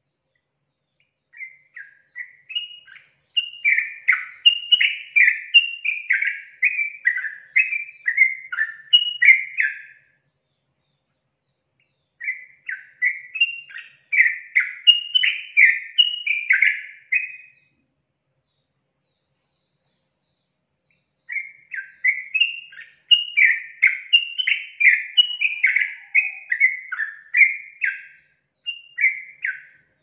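Yellow-vented bulbul (trucukan) singing in three long phrases of rapid, bubbly, up-and-down notes, each several seconds long, with short pauses between them.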